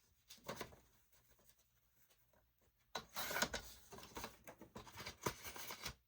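Sheet of craft paper being handled: a brief rustle, then from about three seconds in a dense run of crisp crackles and clicks.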